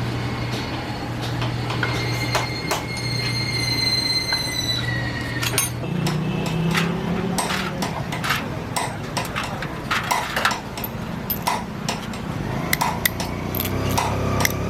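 Metal tools and pump parts clinking and knocking on one another, many sharp taps after the first few seconds, with a steady high whine and low hum during the first five seconds.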